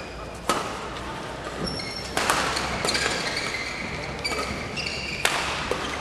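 Badminton rally: rackets hitting the shuttlecock in sharp cracks, the loudest about half a second and two seconds in, with court shoes squeaking on the floor between hits.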